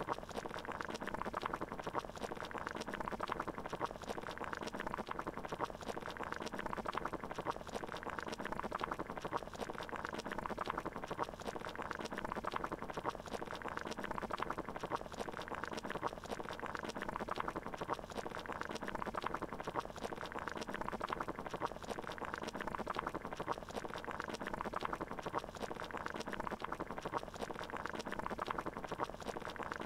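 Water boiling, bubbling steadily and evenly without pause, as when eggs are hard-boiled.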